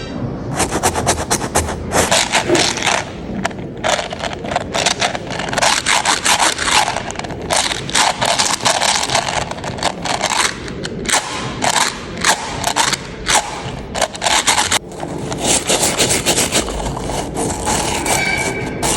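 Soft modelling clay being kneaded and mixed by hand: dense, sticky crackling and scraping in irregular bursts with short pauses.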